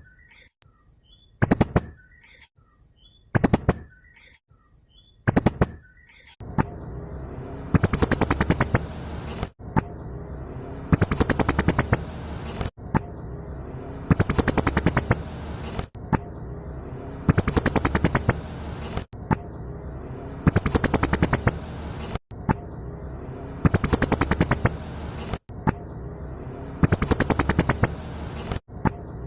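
Blue-crowned hanging parrot (serindit) calling in high, rapid-fire chattering bursts: short sharp calls every two seconds or so at first, then, from about six seconds in, bursts of about a second each, repeated about every three seconds over a steady low hiss.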